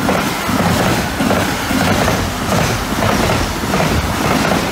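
Intermodal freight train passing close at speed: a steady loud rumble of the wagons with a repeating clickety-clack of their wheels over the rails.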